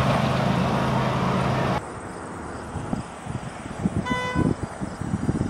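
Small engine of a kiddie ride train running steadily, cut off suddenly about two seconds in. After that comes quieter low rumbling and one short, high toot about four seconds in.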